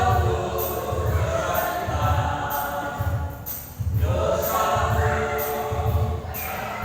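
Church choir of elderly singers singing a hymn, with accompaniment keeping a steady beat in the bass.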